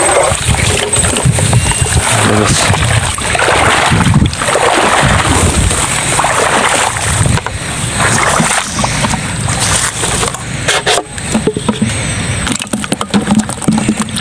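Water splashing and sloshing with knocks and scraping of handling as a perforated PVC-pipe eel trap is lifted from flooded marsh grass and carried. Near the end there is a run of sharper knocks and clatters as the trap is tipped out over a plastic bucket of eels.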